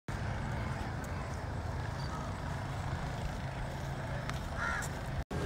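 Steady low rumble and hiss of open-air ambience, with wind or distant traffic in it and a brief dropout just before the end.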